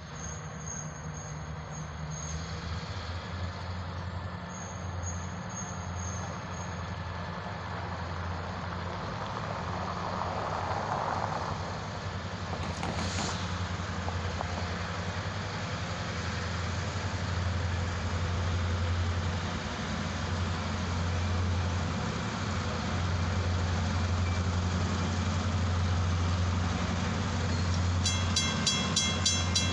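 Diesel locomotive approaching, its low engine rumble slowly growing louder. Near the end a bell starts ringing in quick, even strokes.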